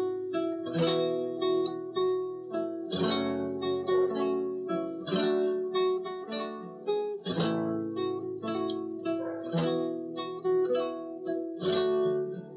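Guitar music: strummed chords ringing on, a strong strum about every two seconds, with lighter picked notes between.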